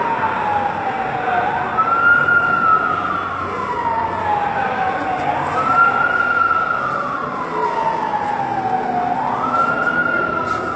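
Ambulance siren wailing: each cycle rises quickly, then falls slowly for about three seconds, and starts again, three rises in all.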